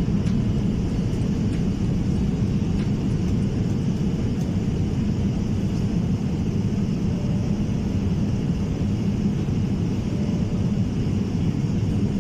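Jet airliner cabin noise in flight: the steady, deep rumble of engines and airflow, even throughout, with no distinct events.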